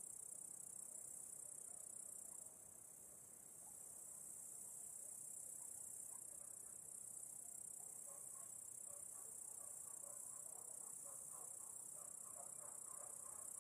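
Faint, steady night-time chirping of crickets, a continuous high-pitched chorus that dips briefly about two and a half seconds in.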